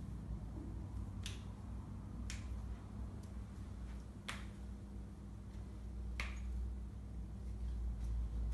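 About five sharp cracks, a second or two apart, from joints popping as the body is manipulated in a chiropractic-style adjustment, over a steady low hum.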